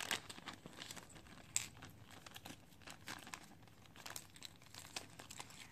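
Thin clear plastic zip-top bag crinkling faintly as a hard-bait fishing lure is worked out of it, with scattered light ticks and crackles.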